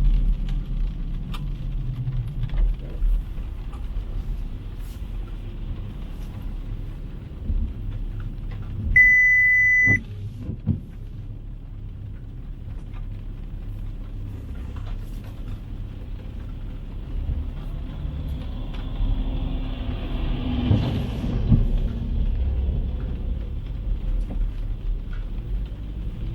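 City street traffic: a steady low rumble of cars, with a single high electronic beep lasting about a second around a third of the way through. Near two-thirds of the way through, a vehicle passes close by with a swell of hiss.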